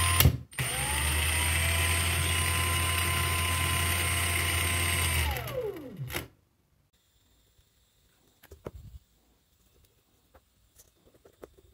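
Brushless motor of a Parkside Performance PWSAP 20-LI B2 angle grinder, with its gear head, running on a replacement sensorless brushless control board. It stops for a moment as the direction switch is flipped, then spins up with a rising whine and runs steadily the other way. About five seconds in, the whine falls away as the speed potentiometer is turned down, and a few faint clicks follow.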